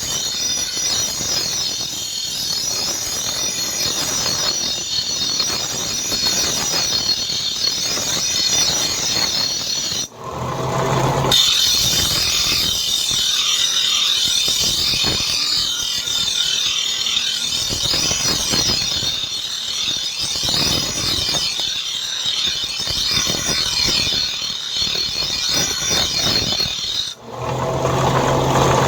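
Power grinder grinding the steel of a truck leaf-spring blade, a steady high-pitched screech. Twice the sound drops out briefly, and a lower hum comes in for about a second before the grinding picks up again.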